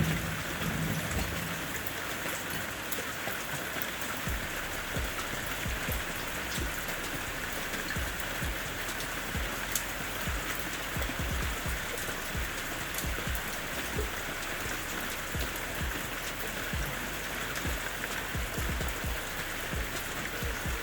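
Steady rain falling, with drops pattering on a surface. A brief low thump at the very start.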